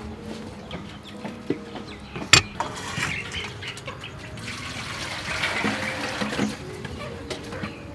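Water poured from a stainless steel pot into a wok, with a sharp knock about two seconds in.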